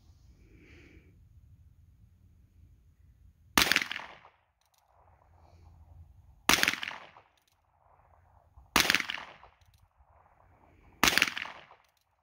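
Ruger Wrangler .22 LR single-action revolver firing four shots, about two to three seconds apart, each a sharp crack that fades over about half a second.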